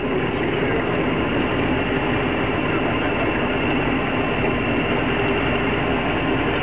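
1933 Austin Seven saloon's 747 cc side-valve four-cylinder engine running steadily while driving, heard from inside the cabin together with road noise.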